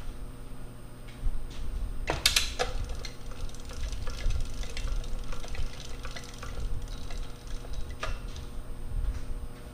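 Sky Hook crane's hand winch being cranked to lower a cast iron fixture plate hanging in a sling, with scattered light clicks, a sharp knock about two seconds in and a smaller one near the end.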